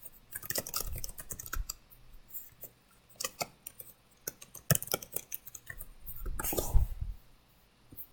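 Typing on a computer keyboard: a run of irregular keystroke clicks as a short sentence is typed, with a brief soft hiss about six and a half seconds in.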